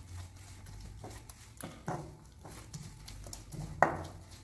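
Steel pestle pounding fried onions against the bottom of a nonstick kadai, crushing them by hand: irregular soft thumps about twice a second, with one sharper knock near the end.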